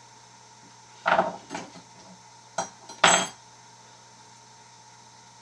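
Bump hammer striking a bump key seated in a pin-tumbler lock: four sharp metallic knocks over about two seconds, the first and last the loudest.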